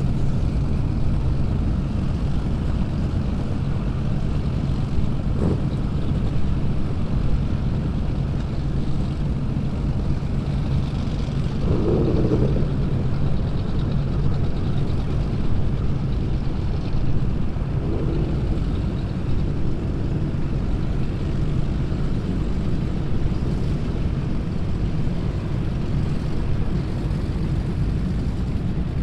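Performance powerboat engines running at idle, a steady low drone with a constant pitch.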